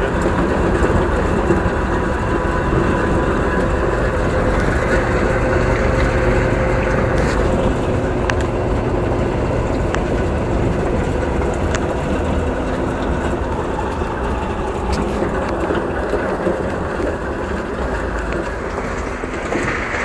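Olive-green Russian off-road truck driving over a rough gravel track, heard from its open cargo bed: the engine runs steadily under a constant rattle and clatter of the body and metal railings.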